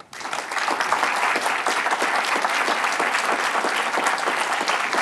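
Audience applauding: steady clapping from many hands that starts right away and holds even.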